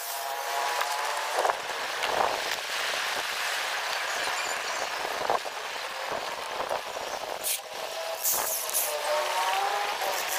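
A small handheld electric saw's motor winds down in the first second, then wooden sticks knock and clatter as they are handled, and a corded electric drill whirs briefly near the end.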